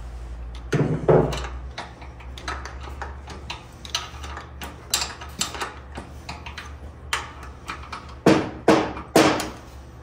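Ratchet wrench clicking and knocking against metal as a bolt is worked at a motorcycle's rear axle and brake. The clicks come irregularly, with louder knocks about a second in and three near the end.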